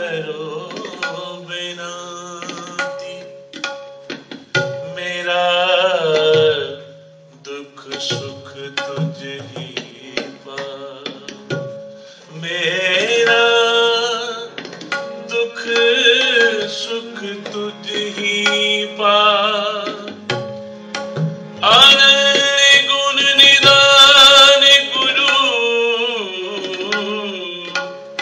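Sikh kirtan: male voices singing a devotional shabad over two harmoniums and tabla. The harmoniums hold steady notes under the wavering sung lines while the tabla keeps a rhythm, and the music is loudest a little past three-quarters of the way through.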